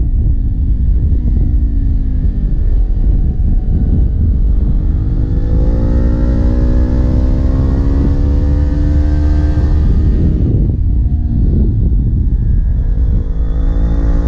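Kawasaki Ninja 400 parallel-twin engine pulling hard, its pitch climbing steadily through a gear for several seconds, dropping off briefly about two-thirds of the way through, then climbing again. A heavy low rumble runs underneath.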